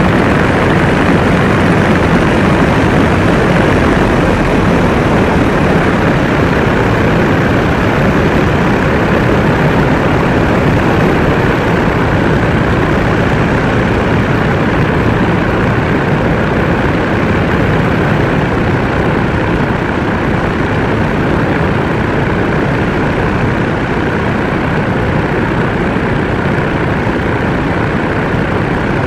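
Light aircraft's MWfly B25L 150 hp engine and propeller running steadily in flight, mixed with heavy wind rush over the outside-mounted camera.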